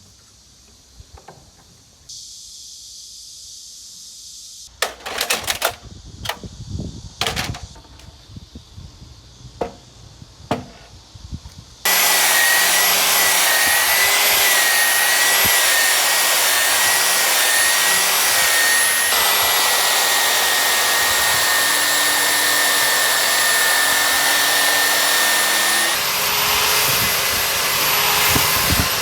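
A few scattered knocks and clicks of wood and tools being handled, then about twelve seconds in an electric power tool starts abruptly and runs steadily, with a high whine over a loud hiss.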